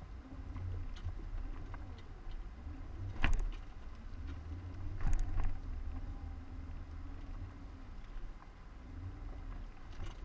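Off-road 4x4's engine running at low revs as it crawls slowly over rock, with two sharp knocks about three and five seconds in.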